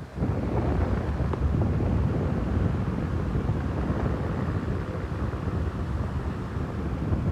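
Ventisol 50 cm 200 W wall fan blowing, its airflow buffeting the microphone as a steady rush of wind noise. The rush starts abruptly with a click at the very beginning.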